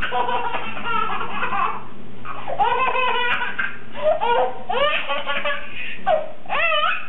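A baby laughing hard in a string of belly-laugh bursts, each rising and falling in pitch.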